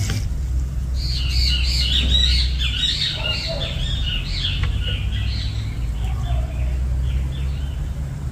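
Birds chirping: a run of quick, overlapping chirps starts about a second in and thins out after about five seconds, over a steady low rumble.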